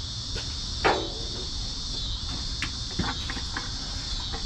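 Crickets chirring steadily, with a few short clicks and knocks, the sharpest about a second in.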